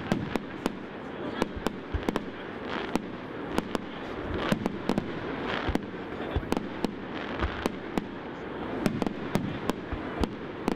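Aerial fireworks shells bursting in an irregular run of sharp bangs, often more than one a second, over a steady murmur of a crowd.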